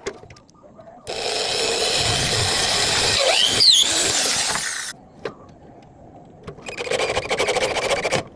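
Power tool run in two loud bursts, about four seconds and then under two seconds long; the first has a whine that swoops up and down near its end, and the second has a fast, even chatter.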